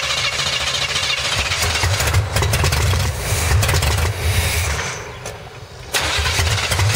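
Chevrolet V8 with a four-barrel carburetor running just after being started, a low rumble that drops back for about a second around five seconds in and then picks up again. The carburetor is flooding, leaving gas over the engine.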